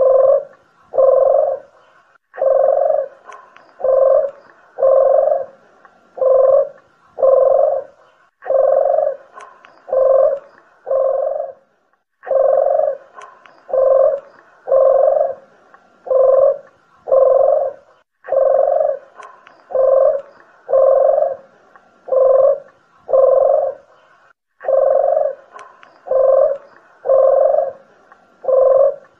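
Collared dove cooing: low coos about one a second, in runs of five or six with short breaks between runs.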